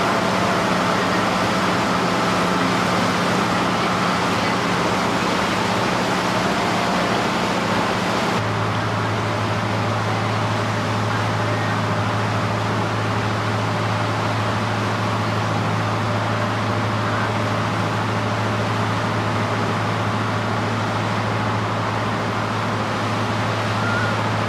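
Steady drone of a passenger boat's engine under wind rushing over the open bow deck. The hum drops to a lower pitch about a third of the way through.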